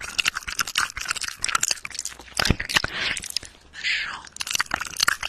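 ASMR mouth sounds right against the microphone's foam cover: a dense run of wet lip and tongue clicks and smacks, with a breathy rush about four seconds in.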